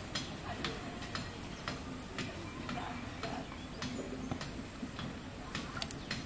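A sharp tick repeating at a fairly even pace, roughly twice a second, over a steady low background noise.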